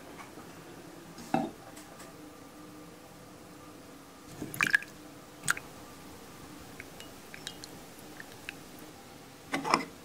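Dishes and containers being handled on a wooden table: a few separate knocks and clinks, a cluster of them about four and a half seconds in, light ticks after, and a double knock near the end.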